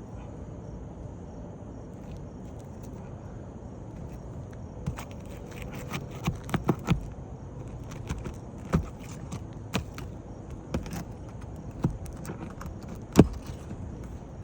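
Irregular sharp taps and knocks of hand tools working at asphalt shingles during a roof repair, about a dozen in the second half, the loudest near the end, over a steady low background noise.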